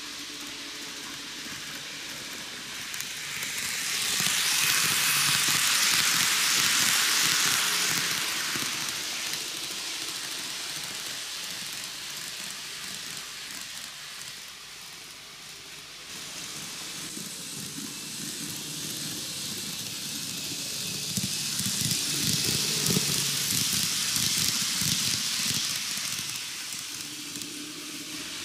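TOMIX N-gauge model train (733 series 3000 EMU) running around the track: a rushing rattle of wheels on rail over a faint motor hum, swelling twice as the train passes close, about four seconds in and again past twenty seconds.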